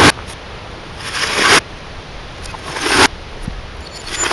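Hammer blows on a CRT television's broken screen and plastic casing, played in reverse. About every second and a half, a crackle of glass and plastic swells up and cuts off sharply.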